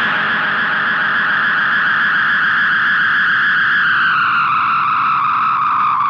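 Moon Canyon's digital delay self-oscillating through a guitar amp: a sustained, continuous feedback tone. About three and a half seconds in, it starts sliding down in pitch as the delay Time knob is turned.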